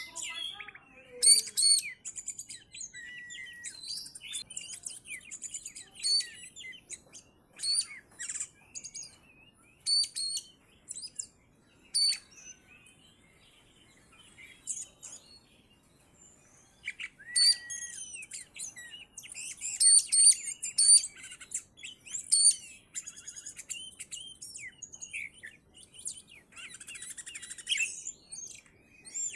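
Oriental magpie-robin (kacer) singing: a varied run of whistled and chattering phrases with sharp, high notes. The song pauses for a few seconds about halfway through.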